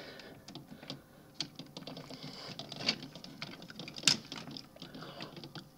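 Hard plastic toy parts clicking and rattling as a replacement hand is pushed onto a Transformers figure's arm, with two sharper clicks about three and four seconds in.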